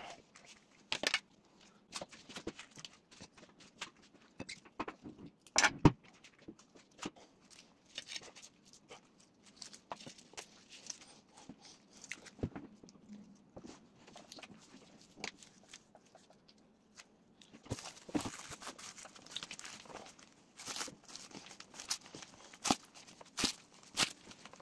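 Irregular rustling, crinkling and light clicking of gloved hands handling plastic wrap, fillings and a bamboo sushi mat, with one sharper click about six seconds in. The noises grow busier in the last few seconds as the sushi is rolled up in the mat.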